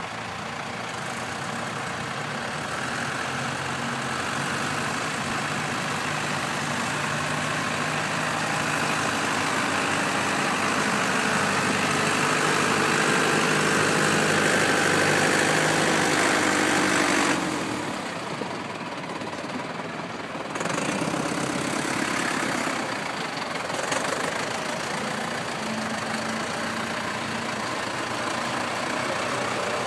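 Valtra farm tractor's diesel engine running as the tractor drives slowly on snow, growing louder over the first half. About 17 seconds in the engine note drops suddenly and comes back about three seconds later.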